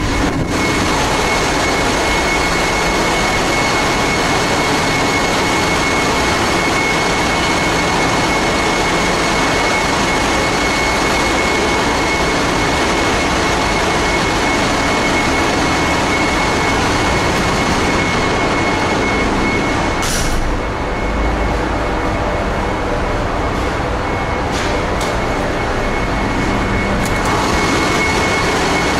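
Loud, steady din of a Capesize cargo ship's engine-room machinery running, with a constant high whine through it.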